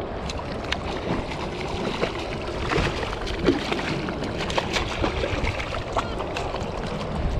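Hooked bluefish thrashing and splashing at the surface beside a kayak, a run of short, irregular splashes over steady wind and lapping water.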